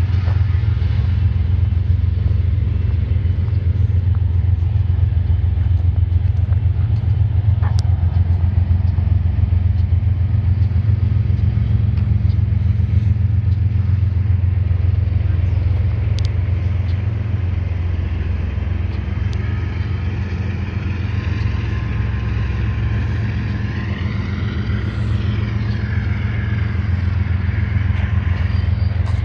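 Steady low mechanical rumble, with faint wavering high squeals coming in during the last third.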